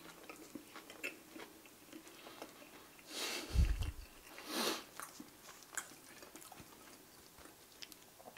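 Quiet chewing of a mouthful of burger: faint soft clicks and squelches from the mouth throughout. About three seconds in come two short, louder rushing noises, the first with a low thump.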